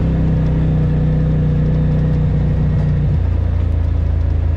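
Side-by-side UTV engine running steadily as it drives along a dirt trail. About three seconds in, the engine note drops to a lower pitch and holds there.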